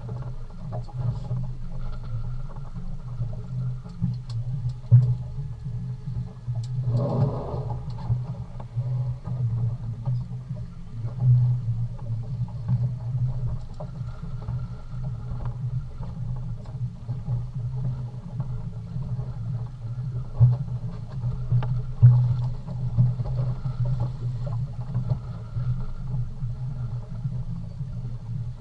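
A boat's motor running with a steady low hum. A brief pitched sound comes about seven seconds in, and a few short knocks come later.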